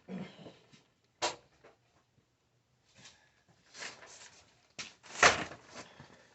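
Small parts being handled: a sharp click just over a second in, scattered light knocks and rustles, and a louder short rush of noise about five seconds in.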